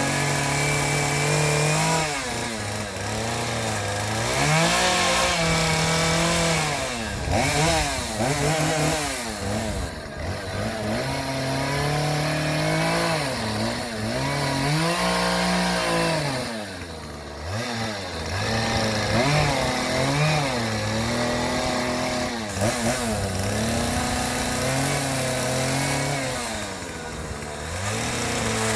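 A small petrol engine running and revving up and down again and again, its pitch climbing and dropping every second or two.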